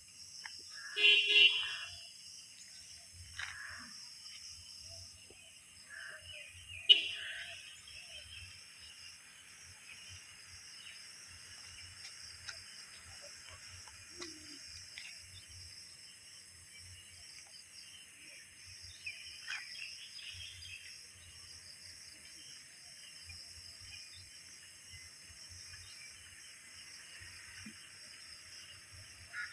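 Steady outdoor insect chorus, with a few short bird-like calls over it. A loud call about a second in and a single sharp knock near seven seconds stand out.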